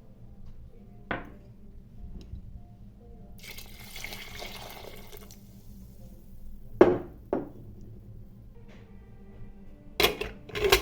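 Kitchen sounds: water running for about two seconds midway, with a knock about a second in, two sharp knocks shortly after the water stops, and a quick cluster of knocks near the end.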